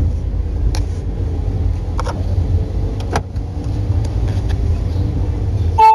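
Car cabin road noise while driving: a steady low rumble from the engine and tyres, with a few light clicks.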